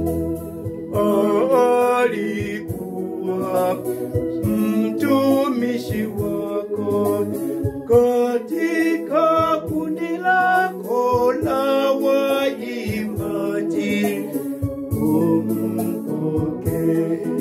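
A small choir of mixed male and female voices singing a gospel hymn in unison, over steady held chords from an electronic organ that is heard alone for about the first second.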